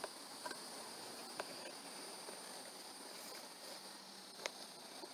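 Faint steady insect chorus, a high even drone, with a few light sharp clicks, the sharpest about four and a half seconds in.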